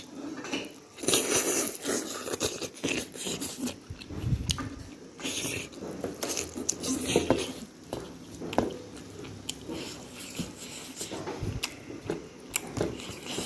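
Someone biting and chewing food: an irregular run of bites and mouth clicks.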